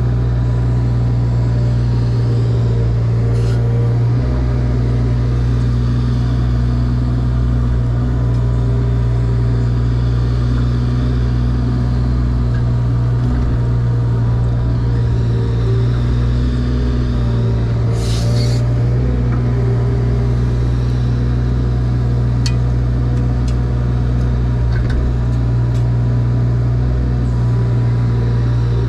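Diesel engine of a compact earthmoving machine running steadily at constant revs, with a brief higher-pitched hiss about two-thirds of the way through.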